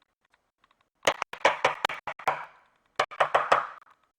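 A quick run of sharp knocks with a short ring after each, starting about a second in. A second, shorter run comes about three seconds in.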